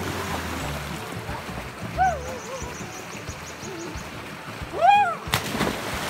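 A person jumping into a stream pool with a loud splash a little after five seconds in, just after a short rising-and-falling call; a similar, weaker call comes about two seconds in.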